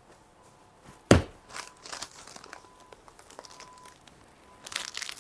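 A sharp knock about a second in, then faint rustles, and near the end loud crinkling of a plastic wrapper as a packaged suit-piece fabric is unwrapped.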